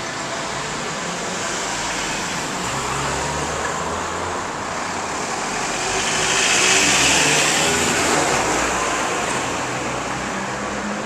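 Street traffic: car engines and tyres on the road, with a small tipper truck passing close by, loudest about six to eight seconds in.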